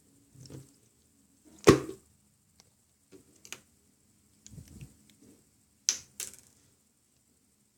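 Yellow slime being squeezed and poked by hand: soft squishing with several sharp little pops or clicks. The loudest pop comes about a second and a half in, and two more come close together near the end.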